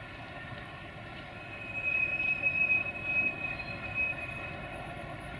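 Diesel train engine running, with a steady hum that grows louder for a couple of seconds in the middle, carrying a thin, high, steady whine.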